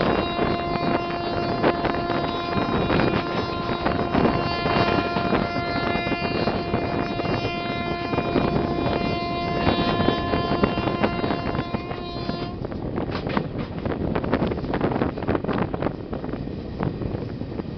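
Long, steady blast of the train's WAM4 electric locomotive air horn, one held note that cuts off suddenly about twelve seconds in. Under it and after it, the rumble and clatter of the coach wheels running over the rails, with wind on the microphone.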